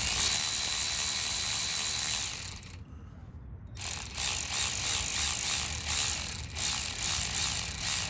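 Hand ratchet with an 8mm socket clicking rapidly as it is cranked to loosen a fastener, with a pause of about a second around three seconds in before the clicking resumes.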